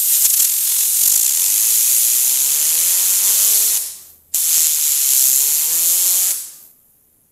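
Compressed air hissing from an air compressor's blow gun aimed at a fidget spinner, in two long blasts with a short break a little after halfway. Under the hiss in each blast a whine rises in pitch as the spinner spins up.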